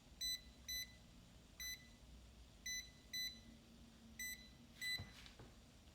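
Klein Tools non-contact voltage detector beeping, seven short high-pitched beeps at uneven intervals, as it picks up live voltage near the plugged-in power cord.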